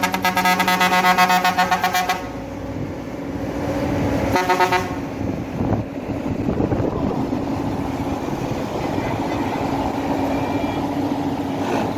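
Hino bus horn sounding a long, pulsing blast that cuts off about two seconds in, then a short second blast about four seconds in. After that the bus's engine runs with a steady low hum.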